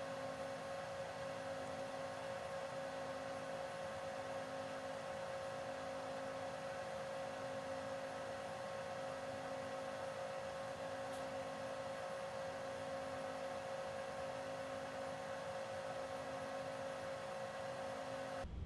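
Steady electrical hum with a pitched whine, plus a softer lower tone pulsing on and off about once a second.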